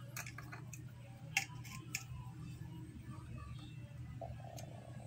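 Multimeter probe tips clicking and scraping against solder joints on a circuit board: a few faint, scattered clicks over a low steady hum.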